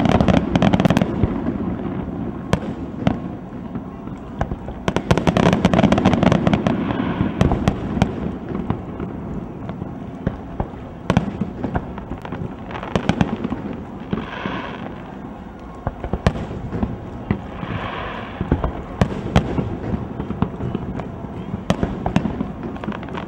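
Aerial fireworks shells bursting in a rapid string of sharp bangs. Two dense, loud barrages come at the start and about five seconds in, then the bangs grow sparser.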